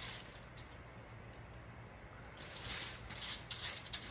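Pastry brush swept back and forth over aluminium foil, spreading butter: a scratchy rustle in short repeated strokes, a few at first, then a quieter pause, then a quicker run of strokes in the second half.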